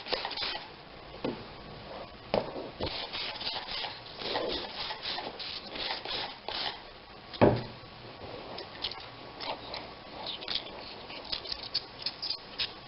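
Irregular rubbing and scraping strokes from hands handling the rubber inner tube during leak-checking, with one sharp knock about seven and a half seconds in.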